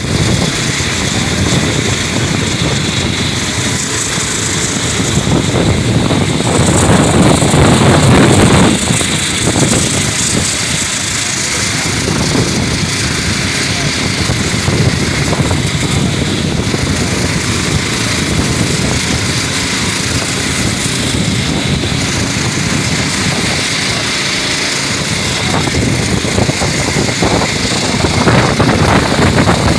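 Strong wind buffeting the microphone: a loud, continuous rushing rumble that swells in gusts, loudest about seven to eight seconds in and again near the end.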